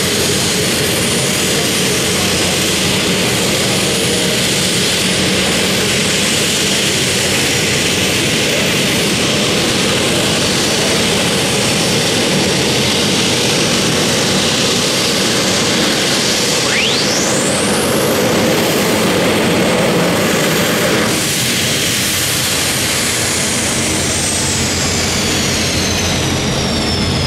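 Turbine engines of a jet-modified pulling tractor running with a loud, steady jet roar. Partway through, a high whine rises steeply. Near the end, a whine slowly falls away.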